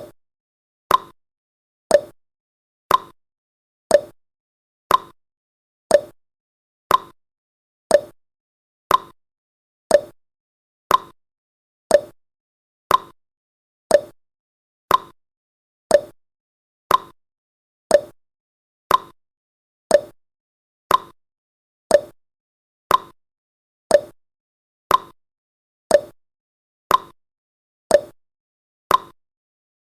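Countdown timer's ticking sound effect: one short, clock-like tick every second, evenly spaced, with silence between.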